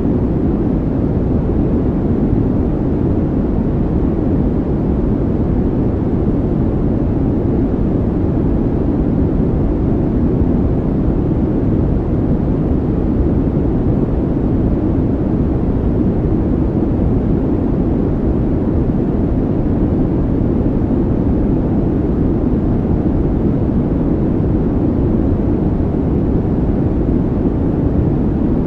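A steady, even low rumbling noise with no rhythm, swells or pitch.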